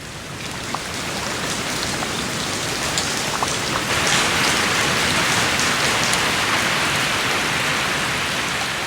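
Steady heavy rain falling, building over the first few seconds and heaviest from about four seconds in, with scattered drops ticking on a surface.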